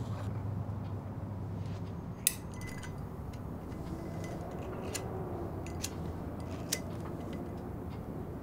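A sharp clink about two seconds in, followed by a brief ringing tone, then three more single clicks, over a low steady hum.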